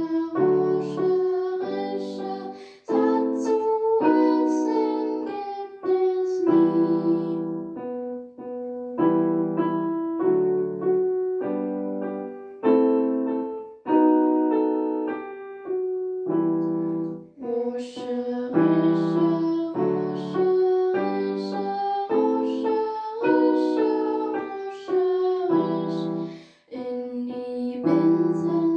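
Electronic keyboard played with a piano sound: a simple melody over held chords in short phrases, each struck note fading. There are brief breaks between phrases every several seconds.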